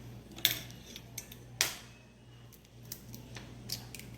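Eggs cracked against the edge of a bowl: two sharp cracks about half a second and a second and a half in, followed by a few light taps and clicks of shell.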